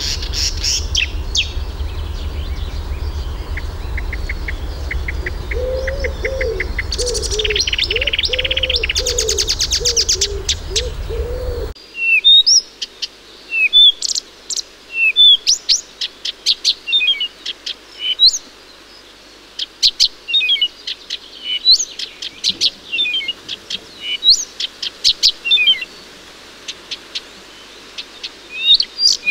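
A warbler sings a fast, dense song over a steady low rumble, with lower repeated notes joining partway through. After an abrupt change about 12 seconds in, a Blyth's reed warbler sings against a quiet background: separate phrases with short pauses between them, including short downward-sliding whistles.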